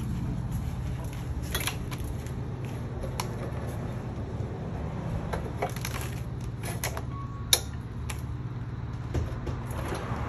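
Scattered clicks and clanks of a plastic folding table's steel legs and cross-braces being swung open and snapped into place, the sharpest click about three-quarters of the way through, over a steady low hum.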